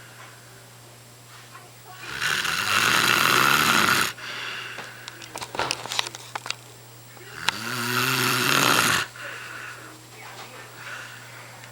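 A man snoring loudly in his sleep: two long snores about five seconds apart, with a few short clicks between them and a steady low hum underneath.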